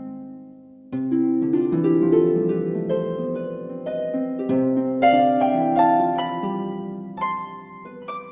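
Background music: a harp plucking a melody of ringing notes over held lower notes, with a new phrase starting about a second in.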